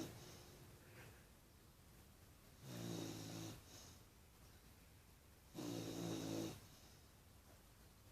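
Cane Corso puppy snoring: two snores about three seconds apart, each lasting about a second, with quiet breathing between.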